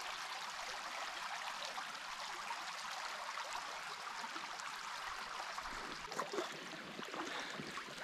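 A shallow creek running low, a steady trickling rush of water over its bed, with a few faint knocks near the end.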